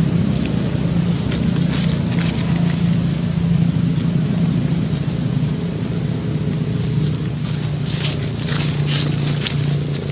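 A steady low engine-like hum under a wash of noise, with short, sharp high clicks or squeaks that come thickest near the end.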